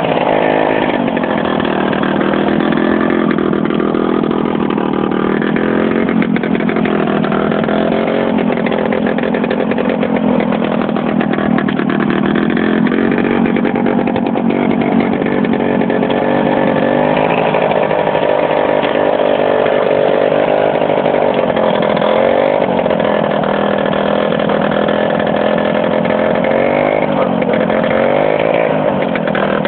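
Small tractor engine running steadily under load as the tractor pushes snow with its front blade, its pitch dipping and rising again several times.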